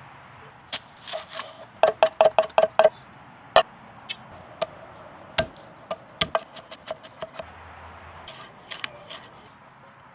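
A knife chopping on a cutting board: a quick run of about six chops about two seconds in, then single chops spaced out, each a sharp knock with a short ring.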